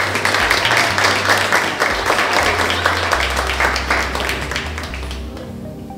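Audience clapping, dying away after about five seconds, with soft background music underneath.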